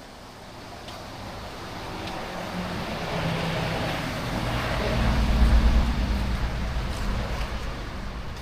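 A motor vehicle driving past on the road: a low engine note and tyre hiss swell up to a peak about five to six seconds in, then fade away.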